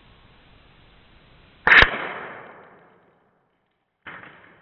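A single sharp shot from a Hatsan AT44-10 Long .22 PCP air rifle a little under two seconds in, its report trailing off over about a second. A fainter knock follows near the end as the struck can is knocked flying.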